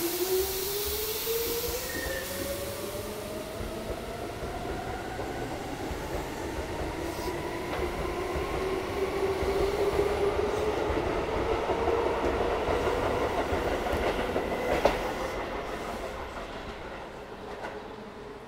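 Keisei 3400 series electric train pulling away from the platform: its drive whine rises steadily in pitch as it accelerates, over the rumble and clack of the wheels. There is a sharp click about fifteen seconds in, and the sound fades near the end.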